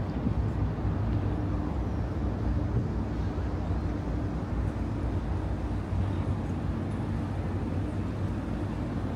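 Steady low engine rumble with a constant hum over outdoor traffic noise.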